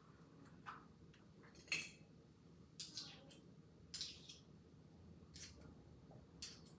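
A metal spoon clinking and tapping lightly, about seven separate knocks spread out, as butter is scooped and knocked off into a slow cooker.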